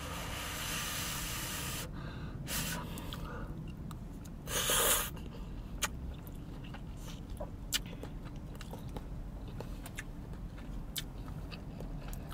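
Ramen noodles being slurped in a long draw, with a shorter, louder slurping draw about four and a half seconds in, followed by quiet chewing with small mouth clicks.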